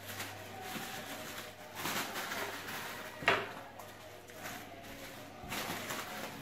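Handling noises of hard parts being moved and scraped, with one sharp knock about three seconds in.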